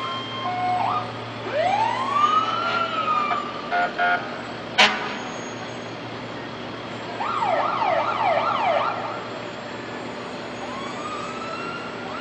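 Fire truck siren: a wail that climbs and falls off about a second and a half in, two short horn blasts around four seconds, a sharp loud crack just after, then a fast yelp of several quick up-and-down sweeps, and a new rising wail near the end.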